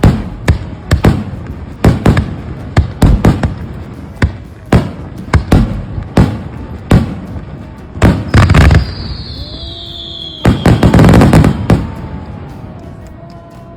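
Aerial fireworks display: a fast run of sharp bangs, roughly two a second for the first eight seconds, then a falling whistle and a dense burst of crackling about ten to twelve seconds in, fading away near the end.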